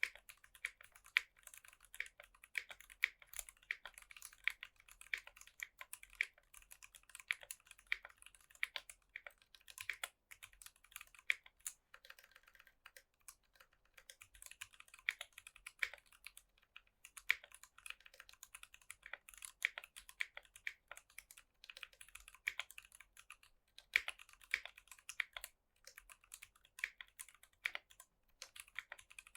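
Typing on a mechanical keyboard with stock, unlubed Durock Koala tactile switches in an aluminium plate and PBT keycaps: a quick, irregular stream of key clicks and clacks, easing off briefly about twelve seconds in.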